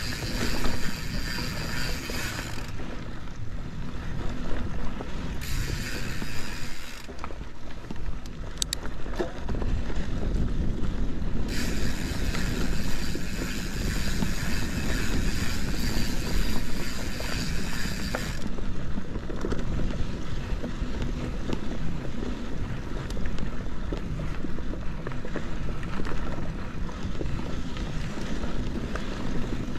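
Santa Cruz 5010 mountain bike rolling along a dusty dirt trail: a steady rumble of tyres and wind noise, with a higher buzz that cuts in and out several times.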